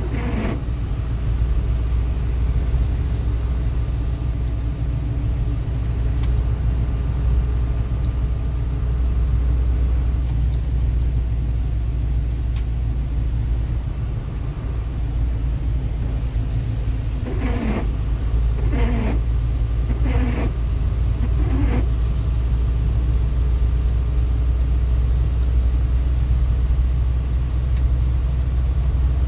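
Steady low road and engine rumble inside a moving vehicle's cabin on a wet motorway. A little past halfway, a few short swishes about a second and a half apart, typical of windscreen wipers sweeping the rain off the glass.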